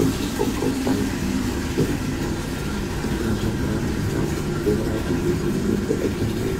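A voice message playing back from a phone: a person's voice, muffled and muddy, over a low steady rumble.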